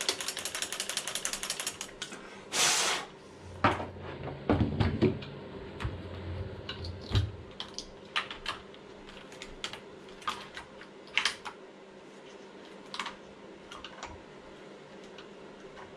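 Hands working on an RC car chassis: a quick run of small clicks for about two seconds, then a short rustle, then scattered clicks and light knocks of plastic parts and wiring being handled and fitted.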